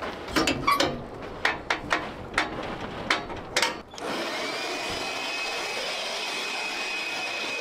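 A series of clicks and knocks, then a small motor-driven blower starts about four seconds in and runs steadily with a thin, high whine.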